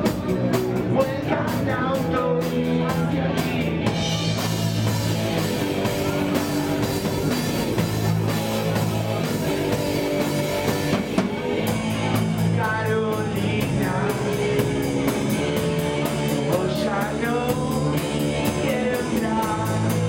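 Live punk rock band playing: distorted electric guitar and drum kit with a fast, steady cymbal beat, and a male lead voice singing over it, mostly in the second half.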